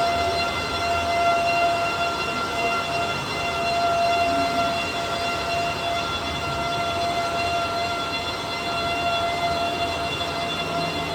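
Bacci T4MO CNC wood-machining centre running: a steady high whine with several overtones over a constant noisy hiss.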